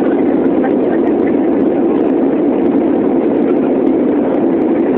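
Steady roar of an airliner's engines and rushing air, heard inside the passenger cabin during the climb after takeoff.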